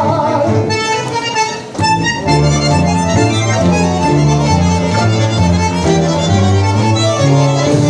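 Live tango orquesta típica: a sung note with vibrato ends about half a second in, then bandoneons, violins and piano play an instrumental passage over a steady, marked beat in the low notes.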